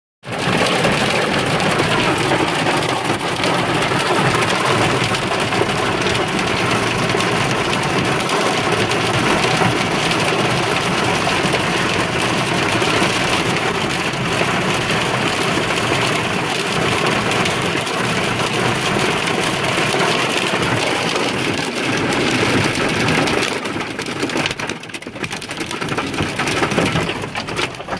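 Heavy wind-driven rain and hail pelting a vehicle, heard from inside the cab as a loud, steady rushing drumming. It lets up somewhat near the end.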